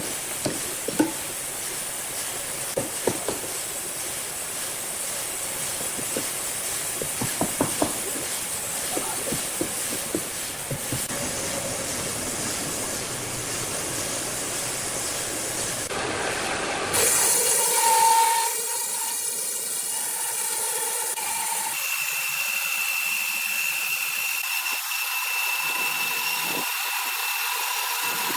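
Sawmill machinery running with a steady hiss and scattered sharp knocks. About two thirds of the way in, the sound turns thinner and higher, with a steady high whine.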